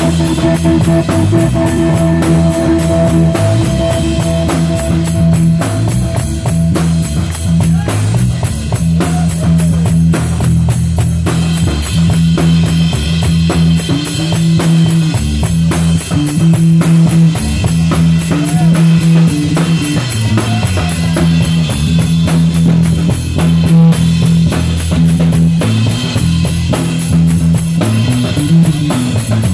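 Live rock band playing: a drum-kit groove with a repeating bass line and electric guitar. A long held note rings over it for the first several seconds and then stops.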